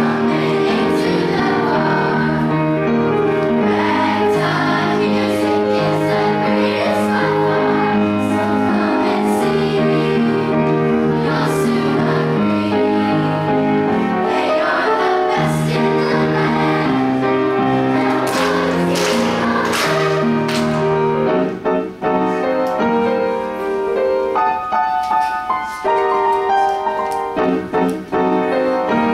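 Children's choir singing in unison and harmony with piano accompaniment. About 21 seconds in the voices stop and the piano plays on alone.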